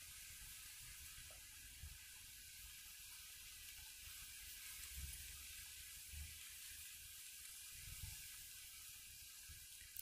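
Near silence: a faint steady hiss with a few soft low bumps, about five, six and eight seconds in.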